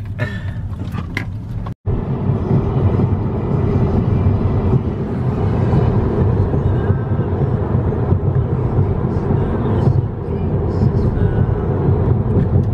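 Background music with a dense, pulsing low end, coming in after a sudden cut about two seconds in. Before it there is a moment of noise inside the moving car.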